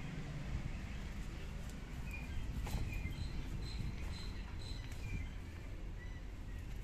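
Birds chirping in short, repeated calls over a low, steady outdoor background rumble.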